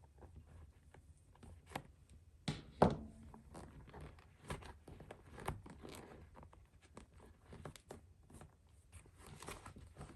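A leather lace being pulled out through the lace holes of a Marucci leather baseball glove, with scraping, rustling and small clicks of the leather being worked by hand. The sharpest, loudest snap comes about three seconds in.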